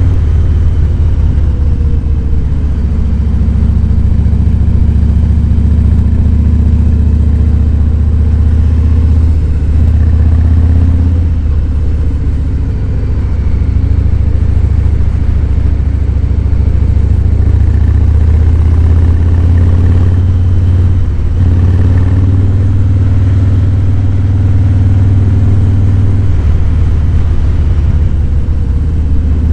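Harley-Davidson Fat Boy 107's Milwaukee-Eight V-twin engine running on the road, a loud, deep, steady exhaust note with small changes in engine speed. It eases off briefly about twelve seconds in and dips for a moment near twenty-one seconds.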